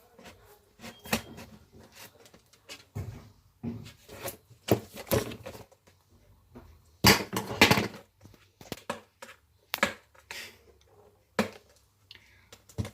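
Fingernails picking and scraping at tight seal stickers on a cardboard headphone box: irregular taps, scratches and rustles of the box being handled, with a louder stretch of scraping about seven seconds in.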